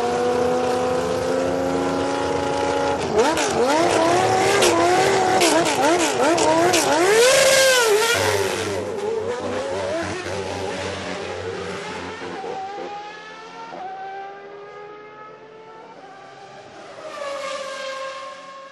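1993 Formula 1 cars' 3.5-litre naturally aspirated engines at high revs, the pitch going up and down through gear changes, with sharp cracks mixed in. It is loudest about seven seconds in, then fades away, and another car's engine swells up near the end.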